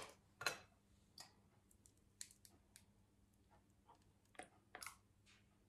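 Near silence broken by faint, scattered light clicks and taps as a plastic-capped liquid seasoning bottle is opened and tipped over a spoon above a glass bowl.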